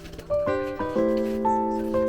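Background music: a melody of held, steady notes, with a fuller, louder chord coming in about a second in.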